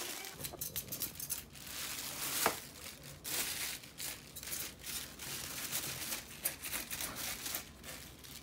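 A knife scraping the scales off a whole fish in a run of short, irregular rasping strokes, with the plastic sheet under the fish crinkling. One sharper tap about two and a half seconds in.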